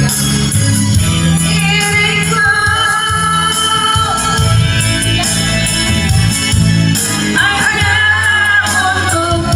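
Music with a singing voice carrying a wavering melody over a steady bass line.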